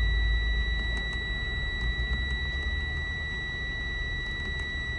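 A continuous high-pitched electronic buzzer tone, steady in pitch, over a low rumble.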